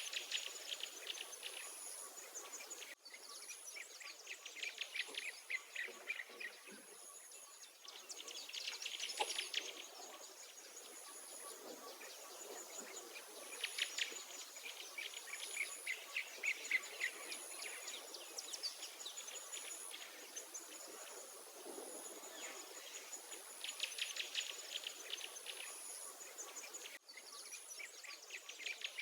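Songbirds singing outdoors in bursts every few seconds, over a high, thin note that repeats about once a second. The sound drops out for an instant twice.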